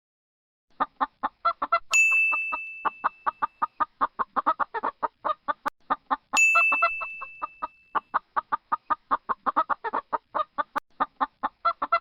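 Chicken clucking in a rapid run of short clucks, about five a second. A bright bell ding rings out twice over it, about two seconds in and again past the six-second mark.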